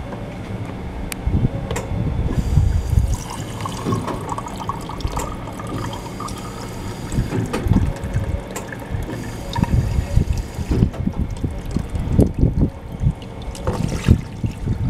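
Hoshizaki AT-250HWCA tea server dispensing a stream of water into a ceramic mug, a steady pouring and filling sound starting about two seconds in and stopping a little past the halfway point. Near the end come a few knocks as the mug is handled on the plastic drip grate.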